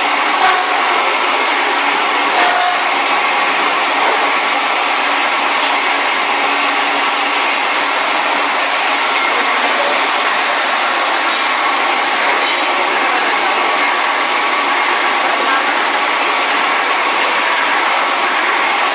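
Toilet-roll log cutting machine running: a steady, loud mechanical noise with no breaks.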